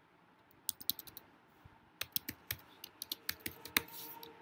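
Typing on a computer keyboard: a few quick keystrokes about a second in, then a faster run of keystrokes from about two seconds in.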